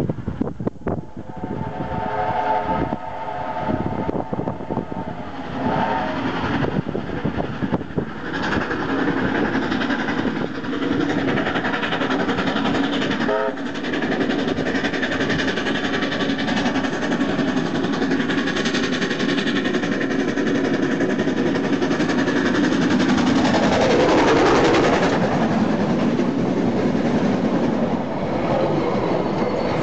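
Steam locomotive sounding its whistle in one long blast, then two short ones, while it approaches. Its running then grows louder and is loudest as the engine passes, about 24 seconds in, followed by the carriages rolling by with a clickety-clack of wheels over the rail joints.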